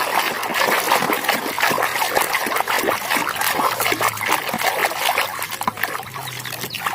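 Water splashing and trickling over a muddy toy as the mud is washed off it, with dense, continuous spattering.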